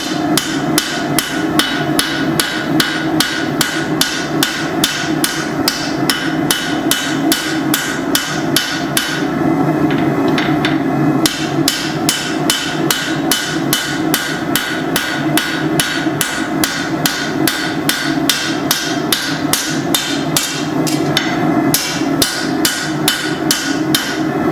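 Cross-peen hammer striking hot leaf-spring steel on an anvil, about three blows a second, widening the blade. There are two short pauses in the hammering.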